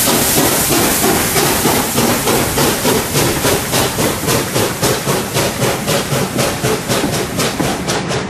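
USA S160 2-8-0 steam locomotive working a train away: a steady run of exhaust beats, about four to five a second, over a loud steam hiss, with the coaches rolling past on the rails.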